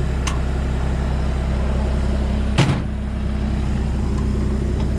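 Excavator diesel engine idling steadily, with a light click near the start and a louder sharp clank about two and a half seconds in.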